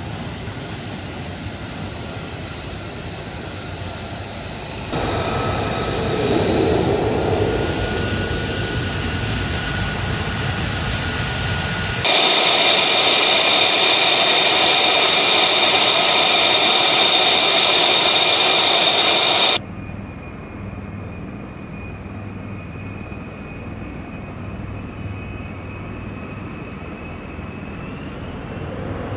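F-35B Lightning II jet's F135 turbofan engine running at idle, a steady high whine over rushing jet noise. It is kept running during a hot-pit refuel. The sound jumps abruptly in loudness several times, loudest and shrillest a little under halfway through, with the whine rising slightly near the end.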